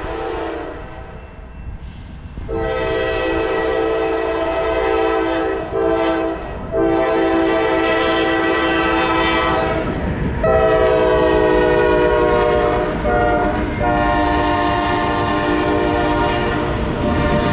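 Diesel locomotive horn on a CSX freight train blowing a series of long blasts as the train approaches and passes. The chord drops in pitch about ten seconds in as the lead locomotive goes by (Doppler shift). A steady low rumble of engines and wheels runs underneath.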